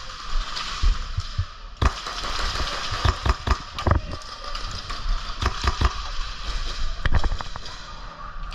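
Airsoft guns firing: sharp pops in short strings, bunched about two to four seconds in and again around seven seconds, over a steady hiss.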